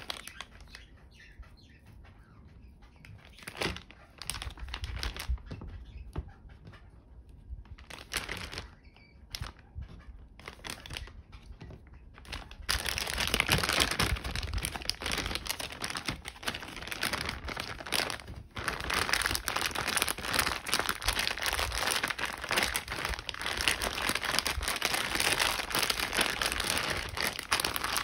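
A plastic Ziploc bag crinkling as cut cucumber is put in and the bag is handled, with scattered crackles at first. About halfway through it turns into steady, louder crinkling as the filled bag is kneaded to work the yogurt-miso pickling mix over the cucumber.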